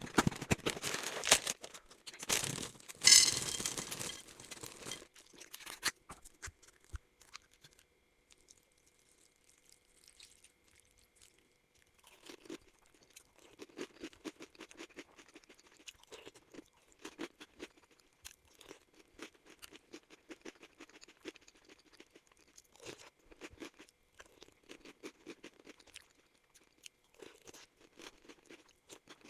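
A cereal packet rustling and tearing loudly for the first few seconds. From about twelve seconds in comes crunchy chewing of KitKat cereal, in irregular bursts.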